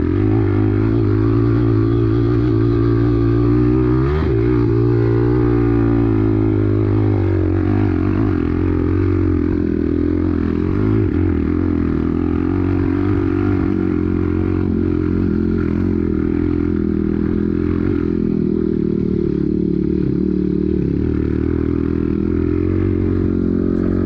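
Enduro dirt bike engine running under load on a dirt track, revving up and back down about four seconds in, then holding a steady pace.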